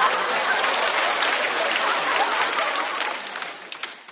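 Studio audience applauding and laughing in response to a comedian's punchline, the applause dying away in the last second.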